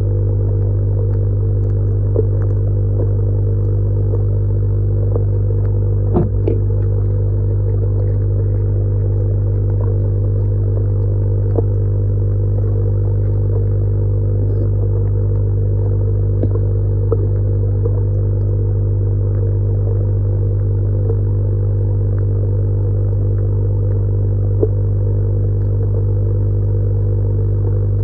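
Electric air pump running with a steady low hum, with a few faint clicks and a sharper knock about six seconds in.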